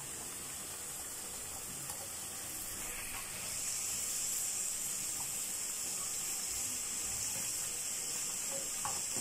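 Pakkon pitha dough pastries deep-frying in hot oil in a karahi, the oil sizzling in a steady hiss that grows a little louder about three and a half seconds in.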